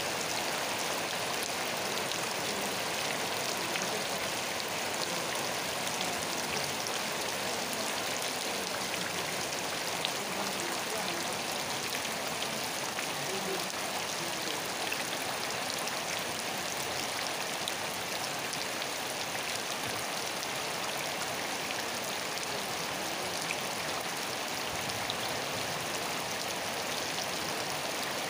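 Steady, gentle rain falling: an even hiss dotted with the fine ticks of many small drops, with no thunder.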